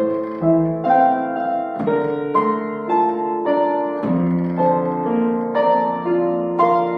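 Yamaha U1E upright piano being played: a melody in the right hand over sustained, overlapping chords, with new notes struck about twice a second.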